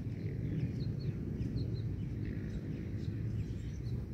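Steady low rumble of outdoor background noise with faint, scattered short bird chirps.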